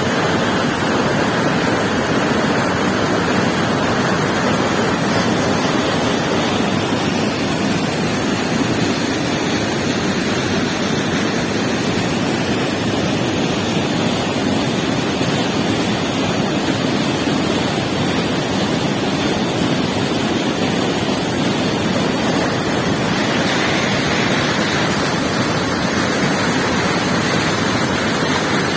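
River water flowing, a loud, steady rush with no breaks.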